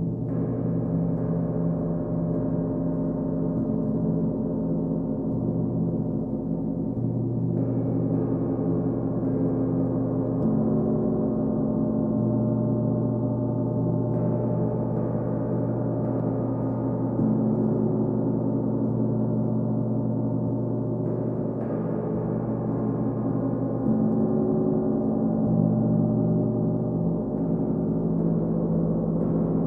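Large hanging gongs, one of them a Paiste, played softly with a soft-headed mallet: a sustained wash of many overlapping low tones, renewed by a fresh stroke every few seconds.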